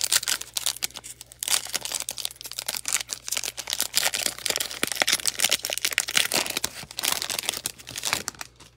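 Foil wrapper of a Panini Donruss basketball card pack being torn open and peeled off the cards by hand: dense, irregular crinkling and tearing that dies away near the end.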